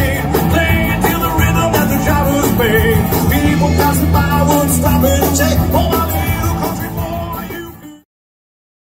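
Rock band playing with a singer, drums, bass and electric guitar. The music fades out about seven seconds in and stops completely at about eight seconds.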